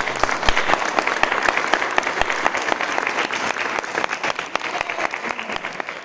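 Audience applauding, the clapping slowly thinning and growing quieter.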